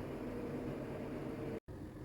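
Steady mechanical hum with hiss, which cuts out abruptly for an instant near the end.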